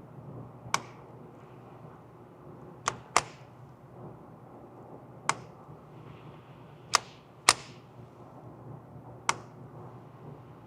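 Seven .22 LR shots from a Ruger Mark IV pistol, fired singly at an uneven pace, including two quick pairs. Each shot is a sharp crack with a short ring-out.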